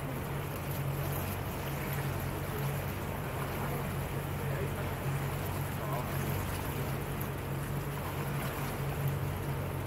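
Motorboat engine running at a steady cruising pace, a constant low drone, with the hiss of water and air rushing past the hull.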